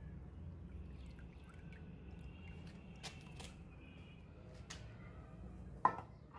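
Faint sloshing and dripping as a rusty steel grub hoe blade is swished through a tub of water and lifted out. Near the end comes one sharp, ringing metallic clank as the blade is set down on a stone floor.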